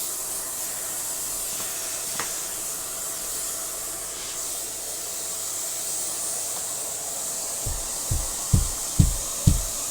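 Dyson upright vacuum cleaner running steadily: a strong airy hiss with a faint motor whine. Near the end, low drum beats of music come in, about two a second.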